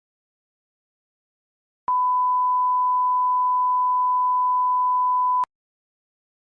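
A single steady electronic beep, one pure tone at about 1 kHz, starting about two seconds in and held for about three and a half seconds before cutting off abruptly.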